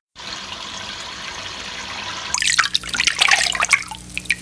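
Water running steadily from a shower spray, joined about halfway by loud, sharp, irregular sounds over the flow.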